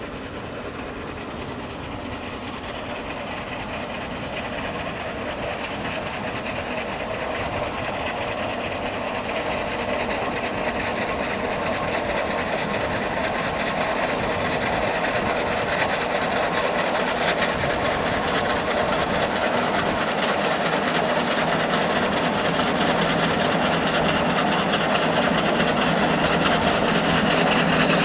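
Fowler steam road locomotive labouring up a steep 1-in-7 hill, its working and exhaust growing steadily louder as it approaches.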